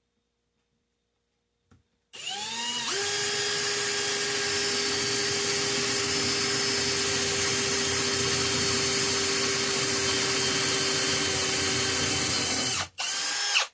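Electric drill spinning up with a rising whine, then running steadily for about ten seconds while boring a hole through an aluminium bus bar. It stops briefly near the end and gives one short last burst.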